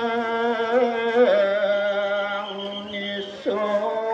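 A man's voice chanting in long held notes that slowly bend and waver; the pitch slides down about a second in, and a new phrase begins near the end.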